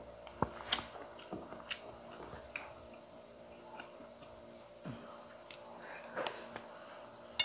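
A person eating quietly: soft chewing and a few scattered light clicks of a spoon against a plate, over a faint steady hum.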